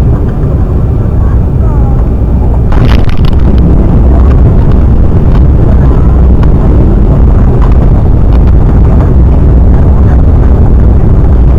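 Loud low rumble of an Embraer E195 jet heard from inside the cabin during landing, growing louder with a short sharp noise about three seconds in.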